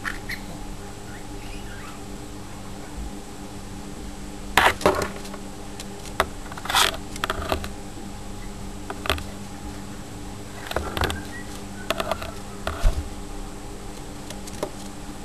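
Lineolated parakeets making scattered short, sharp chirps and clicks, the loudest about four and a half seconds in, over a steady low hum.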